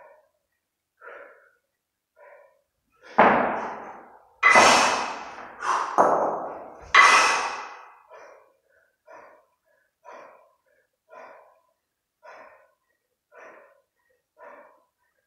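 Steady rhythmic breathing, a short breath about once a second, from a kettlebell sport athlete resting in the rack position with two 32 kg kettlebells between long cycle reps. From about three to seven seconds in, four much louder sudden sounds break in, each fading over about a second.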